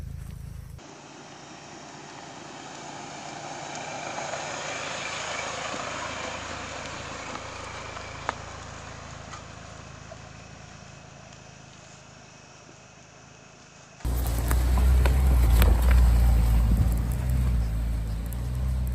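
Ford Bronco Sport SUV moving slowly along a dirt trail: engine and tyres rumbling low over dirt and stones. The sound is loudest in the last few seconds, after a long quieter stretch of steady hiss.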